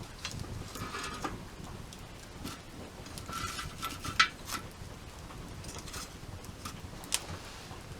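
Wood fire crackling, with irregular small snaps and two sharper pops, one about four seconds in and one near the end.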